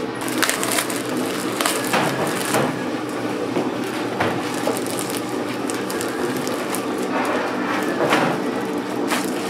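Plastic bread bags crinkling and rustling in short bursts as sliced loaves are pulled out and handled, over a steady low mechanical hum.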